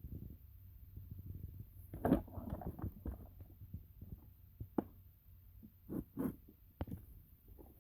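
Light clicks and knocks of parts being handled while a transfer case is taken apart, in scattered single taps with a busier run of knocks about two to three seconds in.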